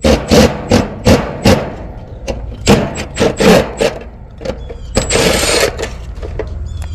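A quick series of sharp knocks and clatters, with a short hiss about five seconds in, from hand tools and metal parts being worked at a heat pump's outdoor unit while the technician gets at its dual run capacitor.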